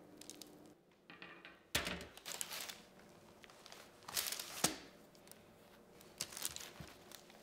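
Baking paper crinkling and crisp baked cheese-bread crust crackling as wedges are pulled apart and picked up, in three short crackly bursts.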